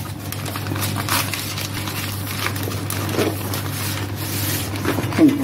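Newspaper rustling and crinkling as it is folded and pressed around a banana-leaf lunch packet, in irregular rubbing strokes over a steady low hum.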